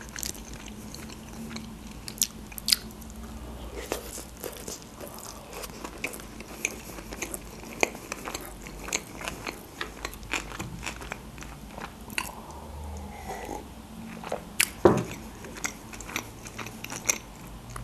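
A person chewing food close to the microphone: many soft, irregular wet mouth clicks, with one sharper click about fifteen seconds in.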